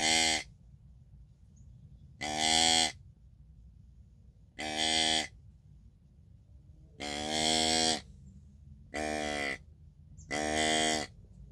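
Adjustable flex-tube deer grunt call set to its doe setting, blown in six short pitched doe calls about two seconds apart.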